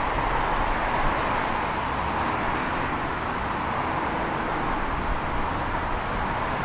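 Tram running along the track, heard from on board: a steady rumble of wheels on the rails with an even hum above it.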